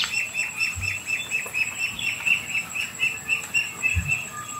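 Rhythmic high-pitched chirping, about five chirps a second, keeping an even pace, with a thin steady high whine behind it.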